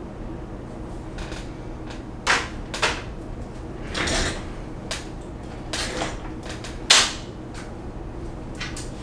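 Several knocks and clicks of objects being handled and set down on a desk, spaced irregularly, with the sharpest one about seven seconds in and a short rustle around four seconds in, over a steady low hum.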